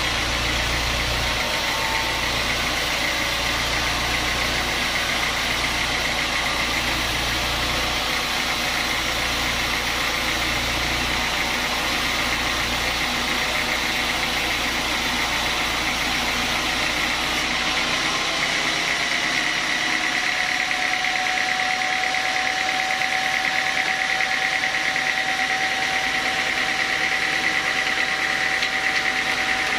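Locally built band sawmill running and sawing through a large log, a steady loud machine noise with a high whine. About 18 seconds in, the low rumble drops away and a steady higher tone comes in.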